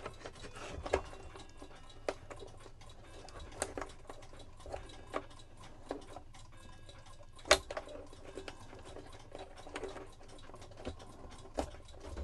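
Small irregular clicks and taps of a cuckoo clock's movement and its wires and parts being handled and worked loose, with one sharper knock about seven and a half seconds in.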